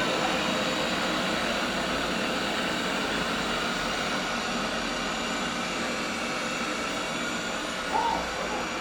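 Robot vacuum cleaner running, a steady whir of its fan motor and brushes, with a short blip about eight seconds in.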